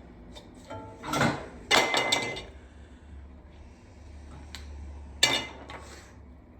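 Metal clattering and clinking as steel pieces and tools are handled: a cluster of knocks and clanks about a second in, one of them ringing briefly, then a single sharp clank near the end.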